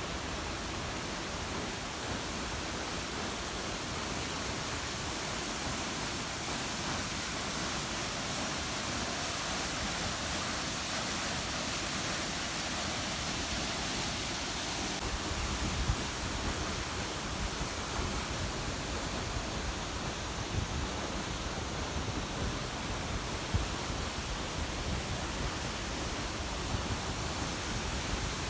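Waterfall pouring steadily into the pool below: an even rush of falling water, with a few brief low bumps.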